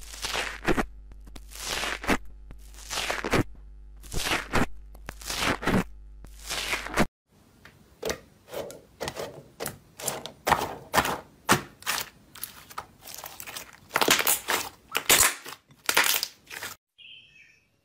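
Foam-bead slime crunching and crackling as a tool presses into it, about one crunch a second. About seven seconds in, this gives way to soft slime being pressed and squeezed by hand, with quick runs of short crackles and pops.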